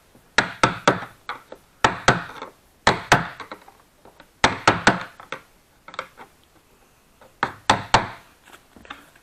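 Hammer tapping a flathead screwdriver held against the ridges of the retaining ring on a snowmobile's plastic fuel tank, to drive the ring round and loosen it. The light taps come in quick groups of two to four, with short pauses between the groups.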